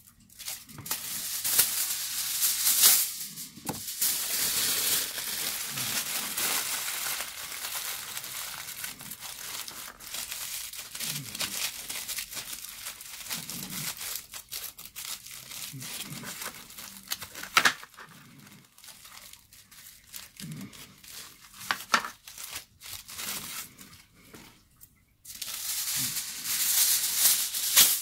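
Aluminium kitchen foil being torn from the roll and crumpled and scrunched in the hands: a continuous crackling crinkle, loudest about two to three seconds in and again near the end, softer in the middle with a few sharp crackles.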